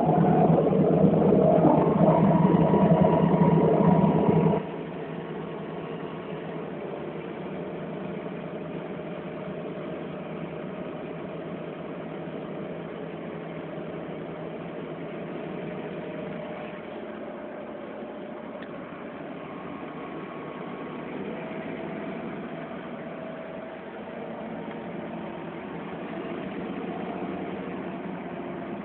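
Caterpillar Challenger track tractor's diesel engine running steadily under load while pulling a subsoiler, heard from the cab. The sound drops abruptly about four and a half seconds in and stays lower and steady after that.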